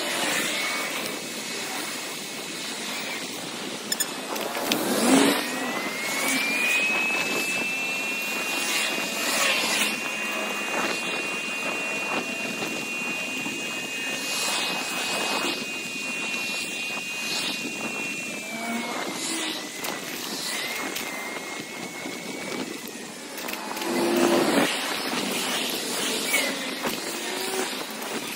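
Sped-up audio of a bicycle ride beside city traffic: wind noise on the microphone and passing cars, with louder swells about five seconds in and near the end. A thin high whine climbs after about five seconds, holds steady for some twelve seconds, then drops back.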